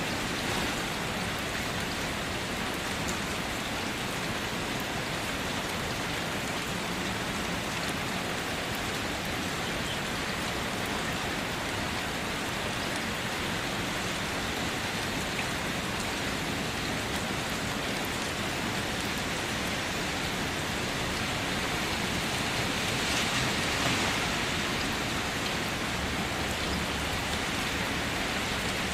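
Light rain falling steadily, an even hiss with scattered drop ticks, swelling a little about three-quarters of the way through.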